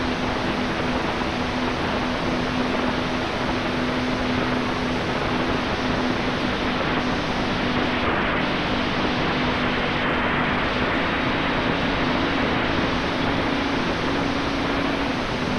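Heavy wind rush over the onboard camera's microphone of an E-Flite Commander mPd electric RC plane in flight, with the motor and propeller holding a steady low hum that shifts slightly up and down in pitch in the second half.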